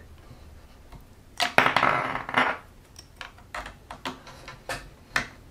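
Hard plastic handling noise as a GoPro in its clear plastic housing is fitted onto a plastic mount: a scraping rustle about one and a half seconds in, then a string of small sharp clicks and knocks as the mount's thumb screw is worked.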